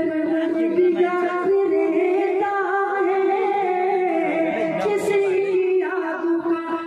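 A man singing a sad ghazal into a stage microphone, drawing out long held notes.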